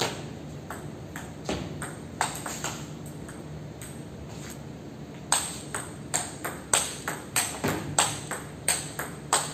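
Table tennis ball clicking off the players' rubber-faced bats and bouncing on the table, with a short echo after each hit. A few scattered clicks at first, then about five seconds in a quick rally of two to three hits a second.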